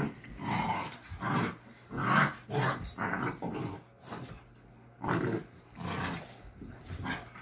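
Two dogs play-fighting, growling in repeated short bursts, with a brief lull about four seconds in.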